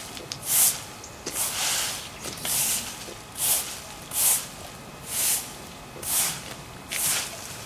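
Push broom sweeping leaves across a concrete driveway, in regular scraping strokes about once a second.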